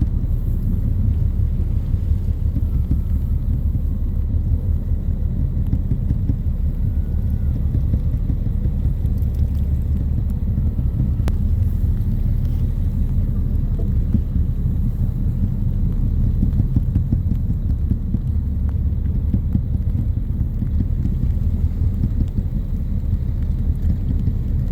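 Steady low rumble of a whale-watching boat under way, its engine drone mixed with wind buffeting the microphone.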